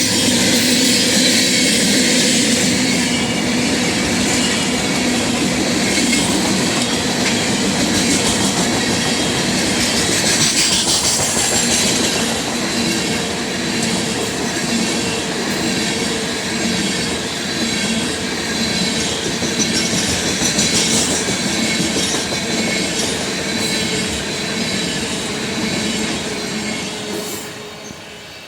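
Union Pacific ballast train's cars rolling past, steel wheels clattering over the rail joints with high-pitched wheel squeal. The noise fades near the end.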